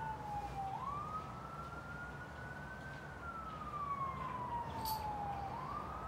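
A siren wailing: one tone that slowly falls in pitch, then sweeps quickly back up, about one cycle every five seconds, over a low steady hum.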